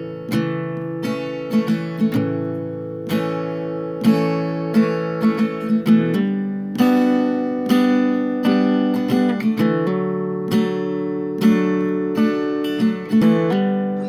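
Background music: acoustic guitar strumming chords in a steady rhythm, each stroke ringing and fading.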